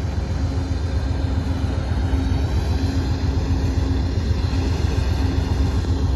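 Amtrak diesel-electric passenger locomotives (GE P42DC) running while standing on the track: a steady low rumble with a faint hum that comes and goes.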